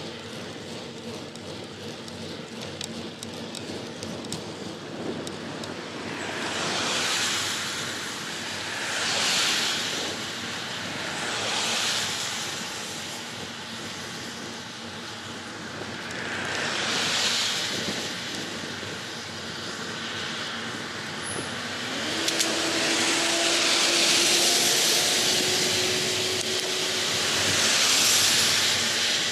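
Road bicycle under way, with steady wind and tyre noise picked up by a handlebar-mounted camera. About six times a motor vehicle goes by, each a hiss that swells and fades over a second or two.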